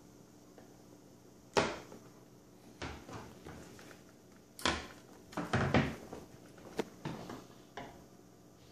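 Irregular knocks and clatters of a breadboard on a clear acrylic base being handled and set down on a table. The loudest knock comes about a second and a half in, with a quick cluster of them around five to six seconds in and a few lighter ones after.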